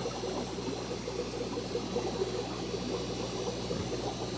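Aquarium sponge filter bubbling steadily, its airlift carrying air and water up the tube in a constant trickle, over a low steady hum.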